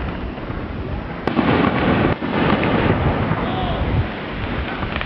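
Fireworks display: a dense, continuous barrage of bangs and crackles, getting louder about a second in.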